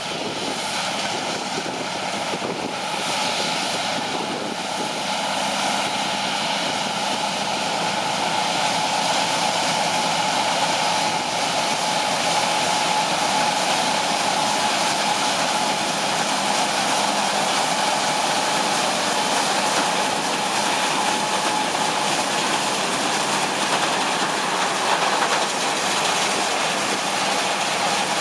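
John Deere 9770 combine running under load while harvesting soybeans: a steady mechanical drone with a constant whine above it, growing a little louder over the first several seconds.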